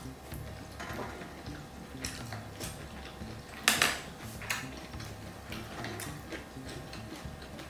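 Close-miked eating of jjajangmyeon noodles: chewing and mouth sounds, with light clicks of chopsticks and tongs against the dishes and one louder utensil clatter about four seconds in.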